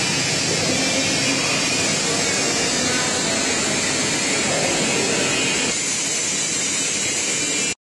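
Steady, even mechanical din of a running automatic screen-printing machine and its conveyor belts. It cuts off suddenly near the end.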